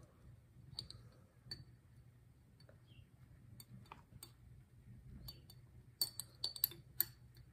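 Metal 90-degree hook clinking and scraping against the inside of a glass orchid flask as it teases plantlets out through the neck: faint scattered clinks, coming thicker about six seconds in.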